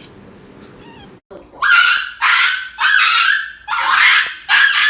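Small dog screaming in a run of loud, high-pitched yelping cries, about five of them, each roughly half a second long, starting about a second and a half in. It is crying out while held for an injection that has not yet been given.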